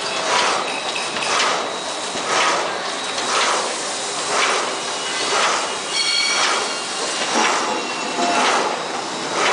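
Automatic sheet-fed corrugated-board machine running and feeding board sheets, with a rhythmic mechanical clatter that repeats about once a second.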